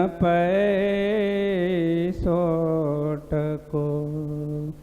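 A man chanting a Gujarati devotional verse to a slow, drawn-out tune. He holds each syllable in long wavering notes, with short pauses between phrases.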